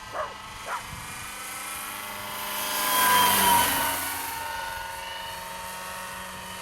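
Electric radio-controlled scale JetRanger helicopter with a 1600 mm four-blade rotor flying, its motor whine and rotor noise steady, growing louder to a peak about three seconds in and then fading again. Two short chirps near the start.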